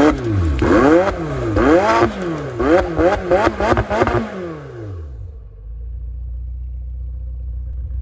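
McLaren twin-turbo V8 revved in a quick series of blips, its pitch rising and falling with each one. It drops back to a steady idle about five seconds in.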